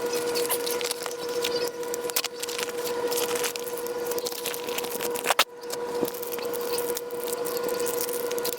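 A steady hum under continuous rustling, with scattered light clicks and one sharper click about five seconds in.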